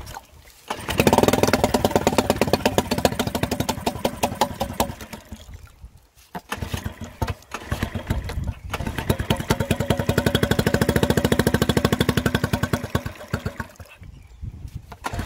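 Mercury 3.5 hp single-cylinder four-stroke outboard, freshly carb-rebuilt, starting from a pull about a second in and running at a fast, even beat. It nearly dies about five seconds in, picks up again, then cuts out about thirteen seconds in. The owner traces the stalling to the fuel tap being set the wrong way round.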